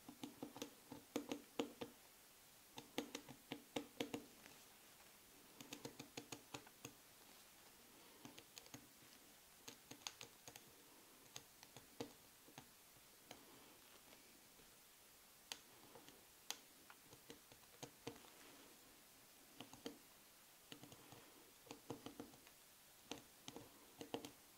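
Fine-tip pen tapping and scratching on a leather medallion while tracing a pattern in short strokes: irregular clusters of light ticks with pauses between them.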